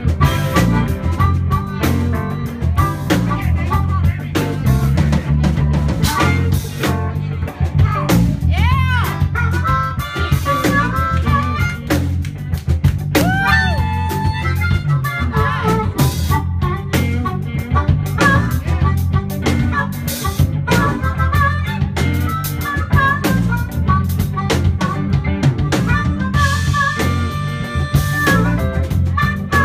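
Live blues band: a harmonica played cupped to a handheld microphone and amplified, playing a lead line with swooping bent notes, over electric guitar and drums.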